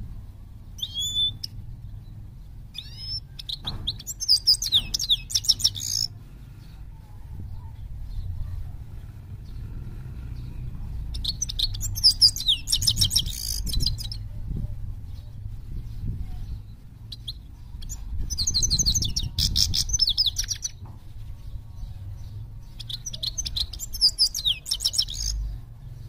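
A caged small finch singing: four bouts of rapid, high, chattering notes, each two to three seconds long, with a few single chirps just before the first bout. A low steady rumble runs underneath.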